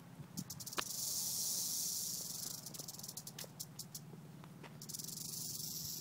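Rattlesnake buzzing its rattle, a dense high-pitched hiss that starts about a second in, eases off in the middle and comes back strongly near the end: the warning of a coiled, disturbed snake.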